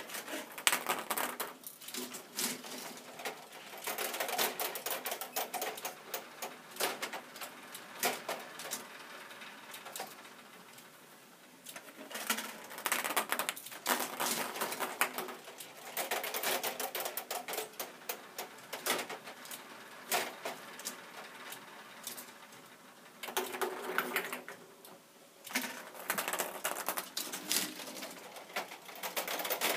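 Plastic K'Nex mechanism of a ping-pong-ball fruit machine clicking and clattering in repeated bursts of rapid clicks a few seconds apart.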